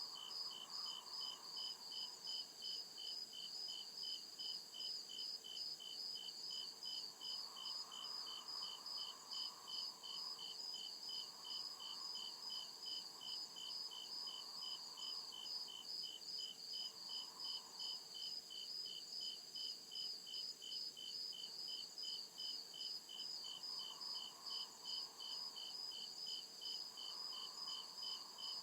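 Crickets chirping steadily in an even rhythm, about two to three chirps a second, heard at two different pitches, over a steady high insect hiss.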